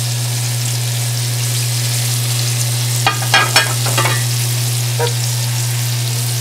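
Breaded rock cod fillets frying in oil in a cast-iron skillet: a steady sizzle with a few sharp crackles about three to four seconds in, over a steady low hum.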